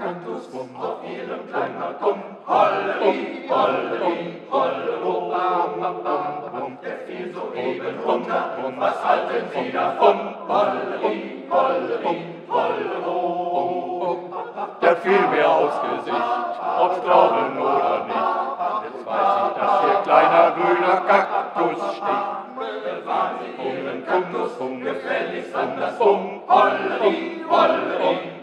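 Male choir singing a cappella, in sung phrases with short breaks between them.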